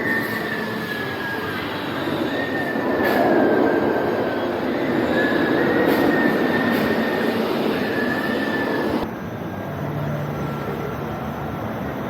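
Steel wheels of a rail vehicle squealing against the track, a series of drawn-out high squeals over a rumbling run. About nine seconds in the sound drops away suddenly, leaving a quieter steady background.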